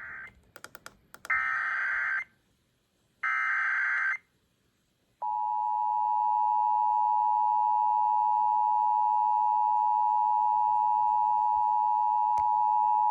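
Emergency Alert System SAME header data bursts, harsh high-pitched warbling blocks about a second long and a second apart (the end of one, then two more, with a few clicks between the first two), encoding the start of a tornado warning alert. After about a second of silence comes the EAS two-tone attention signal, 853 and 960 Hz together, held steady for about eight seconds.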